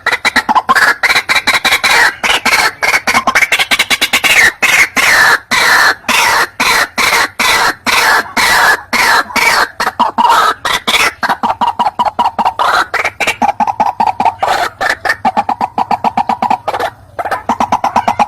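White-breasted waterhen (ruak-ruak) calling loudly: a long, rapid run of short repeated notes, about five a second, played as a hunting lure call.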